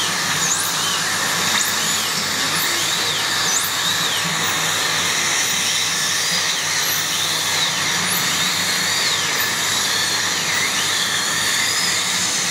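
Dentist's drill running steadily with a high whine that keeps dipping and rising in pitch as it works on the teeth.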